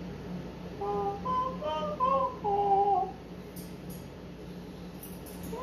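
A voice singing a short tune of a few held notes that step up and down in pitch, about a second in and lasting some two seconds; a few faint clicks follow.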